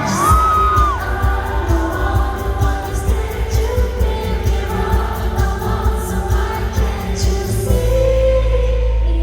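Live pop-rock song: a female singer's amplified vocals over a full band with a steady drum beat, heard from the audience through the venue's sound system. Near the end the drums drop out, leaving a sustained bass note under the band.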